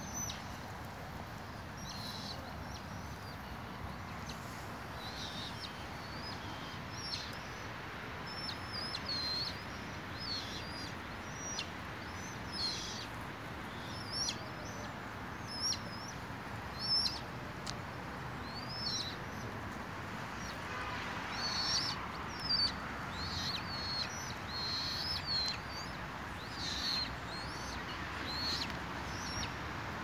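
Birds chirping: short, high, curving notes repeating every second or so, thicker for a few seconds near the end, over a steady background hiss.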